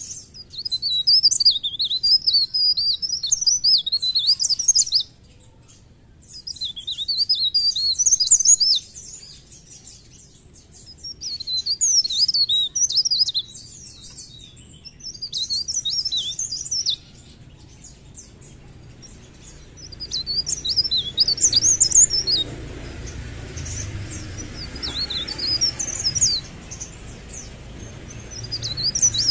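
Blerengan (cikrak daun), a small leaf warbler, singing in repeated bursts of rapid, high twittering. There are about six phrases of two to five seconds each, with short pauses between them.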